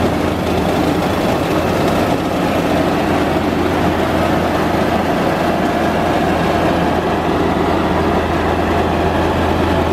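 Mobile rice and corn mill running: its engine and belt-driven milling machinery make a loud, steady drone with a deep hum.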